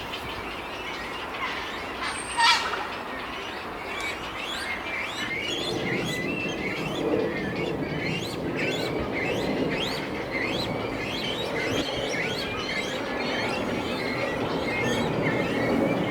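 Many small birds chirping rapidly and continuously, with a sudden loud sharp sound about two and a half seconds in. A low background noise grows louder about six seconds in.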